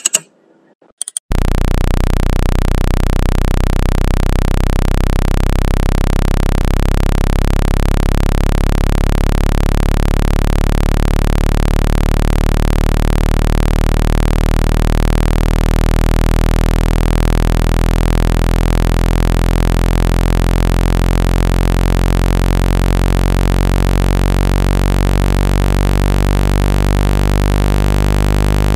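A couple of short clicks, then a loud, steady, low electronic tone with many overtones starts about a second in and holds. It is a speaker-cleaning tone, played to shake water and dust out of a phone speaker.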